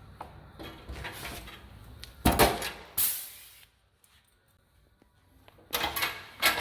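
Riveting work on a vehicle's side panel: a pair of sharp metallic knocks about two seconds in, then a short hiss. Clattering knocks near the end.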